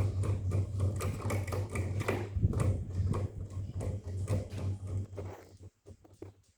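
GMC FC0670B mini ceiling fan running: a steady low motor hum with rapid, irregular clicking or rattling. The hum and clicking drop away about five and a half seconds in.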